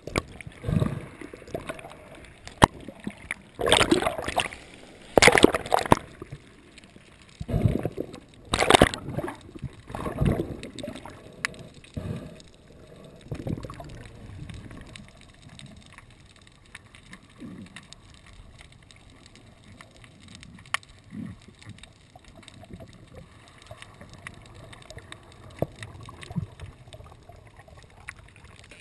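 Water sloshing and gurgling close by in irregular loud bursts over roughly the first dozen seconds, then quieter lapping with scattered small clicks.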